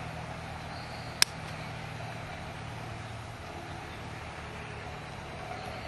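Steady outdoor background with a low hum, broken about a second in by one short, sharp crack.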